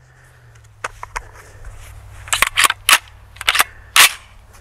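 Sharp metallic clicks and clacks from a JTS AR12 semi-auto shotgun being handled, its action and gas parts worked by hand. There are two clicks about a second in, then a quicker run of about seven between two and four seconds.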